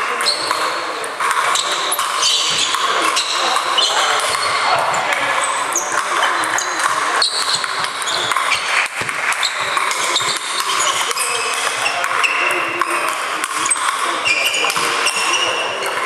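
Table tennis balls ticking off sandpaper bats and tables, many short high-pitched pings overlapping from several tables, echoing in a large hall.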